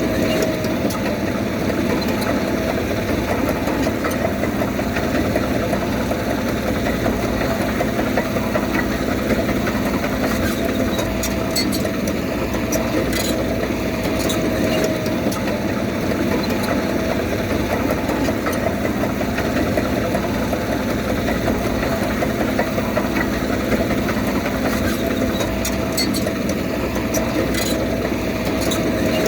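Diesel engine of heavy earthmoving equipment running steadily, with a few short sharp clanks.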